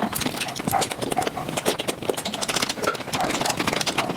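Eating sounds of someone chewing and sucking mutton nalli (goat marrow bones), played at five times speed, so the wet smacks, slurps and clicks run together into a dense, fast patter.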